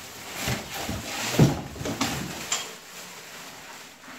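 Black plastic bag rustling and crinkling as it is handled in a cardboard box, with a dull thump about a second and a half in. The rustling fades to a quieter crinkle after about three seconds.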